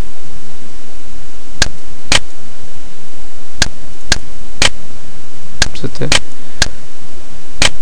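Computer mouse clicking: about eight short, sharp clicks, several in pairs half a second apart, over a loud steady hiss.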